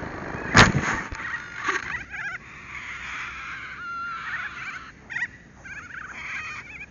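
Old Fogey RC plane touching down hard in grass, heard from its onboard camera: one loud thump about half a second in, with a few smaller knocks and a brief rustle just after. Birds call now and then in the background.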